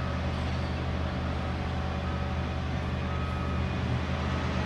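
Steady low hum of a running vehicle, with faint high whine tones that come and go above it.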